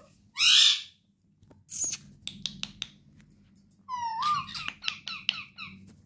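Rose-ringed (Indian ringneck) parakeets calling: a loud harsh screech about half a second in, then a run of sharp clicks and short chirps, and from about four seconds a warbling whistle that rises and falls, followed by quick chattering calls.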